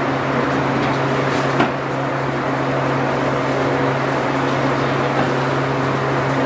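Steady motor hum of workshop machinery running, with a single light knock about one and a half seconds in.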